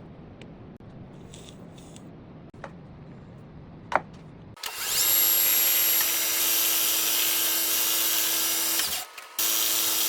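A click, then a small electric power-tool motor switches on and runs at a steady high whine, stops for about half a second near the end, and starts again.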